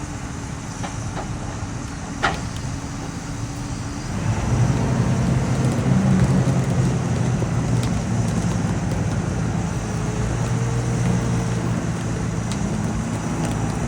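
The diesel engine of a giant self-propelled wood chipper runs steadily, with a sharp knock about two seconds in. About four seconds in its note grows louder and heavier and then holds, as the machine takes on load.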